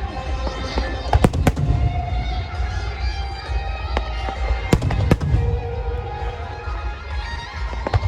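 Starmine fireworks barrage: sharp bangs of shells bursting, a quick cluster just over a second in and two more around five seconds, over a continuous low rumble of launches and bursts. Music plays throughout.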